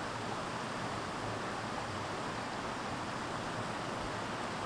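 Steady rushing of river water running over a rocky rapid.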